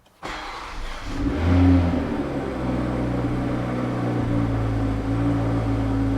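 Car engine starting, revving briefly, then settling into a steady idle.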